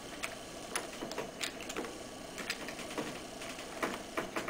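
A few faint, scattered clicks and light rattles from a lever-clamp battery terminal connector being handled after it has been flipped open to disconnect the battery.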